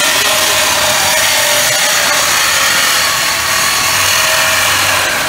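Handheld electric power tool cutting into a car's metal exhaust pipe: a loud, steady cutting noise as the muffler is cut out for a muffler delete.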